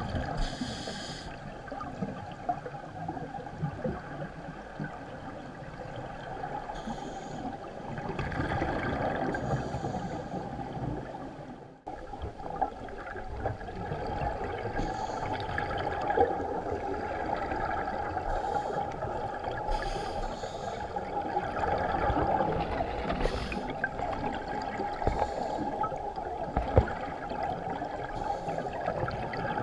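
Underwater sound of a scuba diver's exhaled bubbles gurgling out in short bursts every few seconds, over a steady hum.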